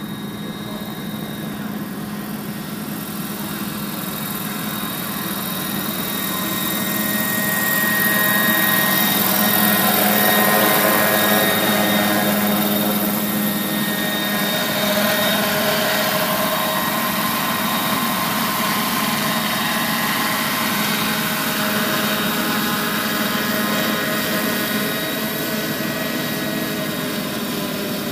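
Scale radio-controlled model helicopter flying, its motor and rotors giving a steady whine over a rushing hiss. It grows louder from about six seconds in, peaks a few seconds later and then eases off a little.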